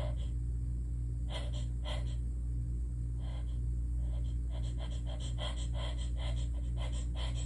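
A woman's gasping, catching breaths of a sneeze building up while she tries to hold it back during an allergy fit. There are a few separate gasps at first, then a quick run of short gasps, several a second, in the second half.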